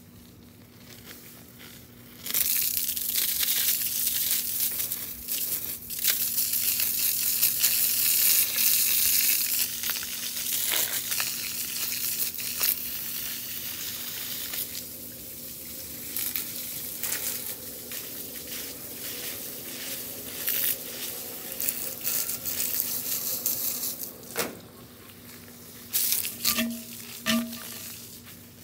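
Water spraying from a garden hose, a loud hissing spatter that starts about two seconds in, eases off after about twelve seconds, then comes and goes in short gusts.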